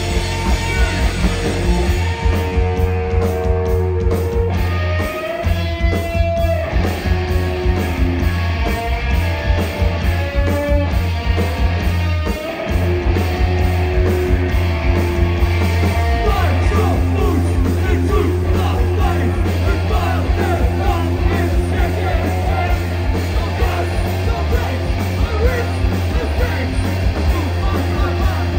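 Punk rock band playing live and loud, with electric guitars, bass and drums in a steady driving beat and a singer's vocals. The bass and drums drop out for a moment twice, about five and twelve seconds in.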